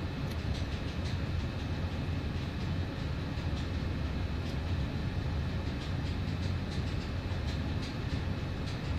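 Steady low rumbling background noise, with a few faint light ticks scattered through it.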